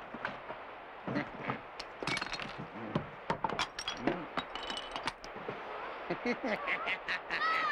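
Animated-film sound effects of a rainstorm: a steady hiss of rain with scattered knocks and crashes, and short high cries from the young monkeys near the end.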